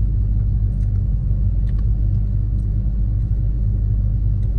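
Car engine idling, a steady low rumble heard from inside the cabin, with a few faint clicks over it.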